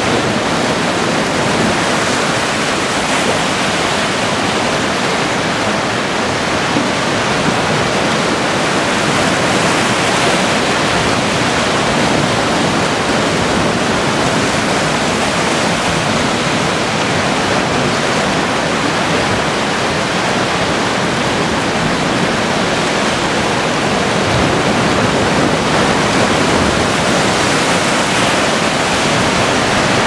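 Sea waves breaking and churning among coastal rocks: a loud, steady rush of surf with no pause between breakers.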